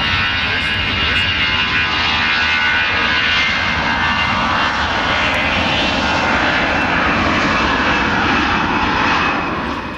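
Airbus A380-861's four Engine Alliance GP7270 turbofan engines running at taxi thrust as the airliner rolls past: loud, steady jet noise with faint whining tones. It falls away suddenly near the end.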